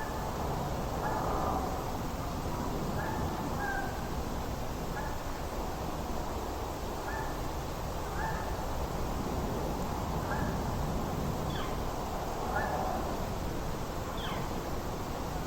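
A bird calling repeatedly in short calls about once a second, over a steady low outdoor rumble.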